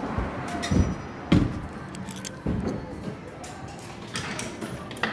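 Music playing from a prize claw machine, with three dull thumps about one second in, a moment later, and about two and a half seconds in.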